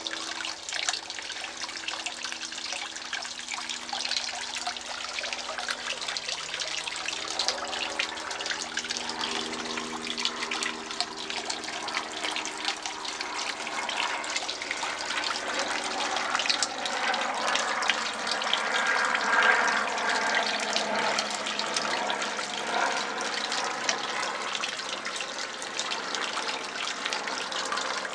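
Water trickling and splashing in a garden fish pond, a continuous busy patter that swells a little about two-thirds of the way through.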